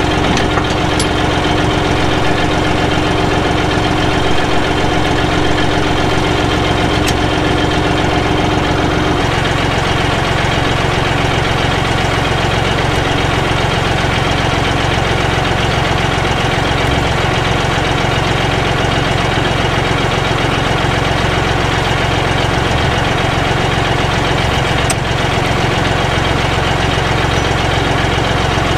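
John Deere utility tractor's diesel engine idling steadily, with a steady hum over it that stops about nine seconds in.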